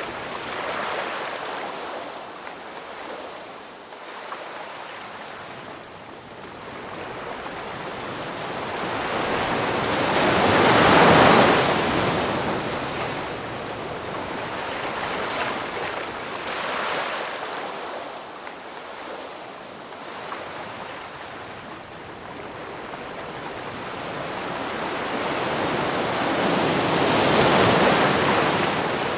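Ocean waves breaking and washing up the shore, the surf swelling and falling back, with two bigger waves cresting about eleven seconds in and near the end.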